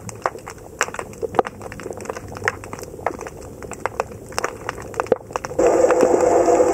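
Underwater crackling: scattered sharp clicks. About five and a half seconds in, a louder steady engine hum starts, heard through the water.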